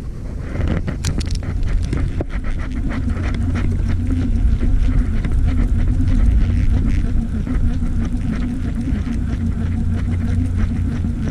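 A small fishing boat's motor running with a steady low hum, with a quick, irregular run of clicks and knocks over it.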